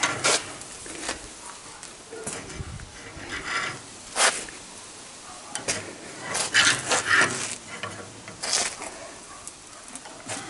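10 mm steel rod being bent in a bench vice with a ring spanner used as a lever: a string of irregular metal scrapes and clinks as the rod and spanner shift against the vice jaws.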